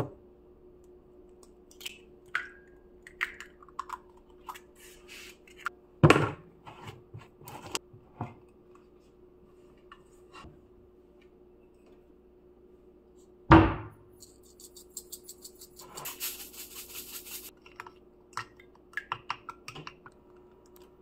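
Kitchen handling sounds while beating eggs: scattered clicks and two loud knocks of things set down on the counter, then a spoon beating eggs in a ceramic bowl with a quick run of light clinks over the last few seconds. A steady low hum runs underneath.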